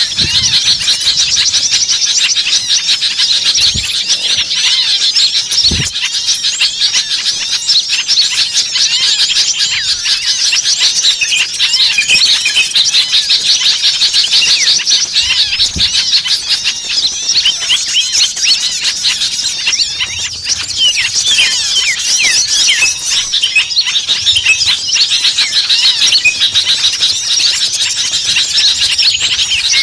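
Bird-lure recording of many small songbirds calling at once: a dense, unbroken mass of fast, high, overlapping chirps and squeaky notes, the noisy 'ribut' calling used to draw small birds in. A few brief low thumps come through now and then.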